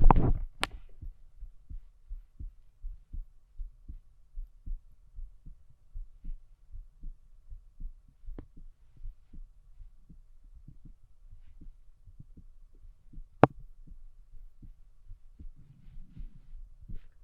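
Human heartbeat heard through a stethoscope: a steady, even rhythm of low thumps. One sharp click stands out about thirteen seconds in.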